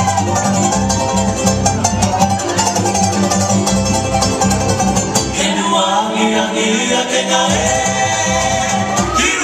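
Hawaiian-style song for a hula dance played over a loudspeaker: a sung melody over strummed string instruments and a steady bass line, the arrangement shifting about halfway through.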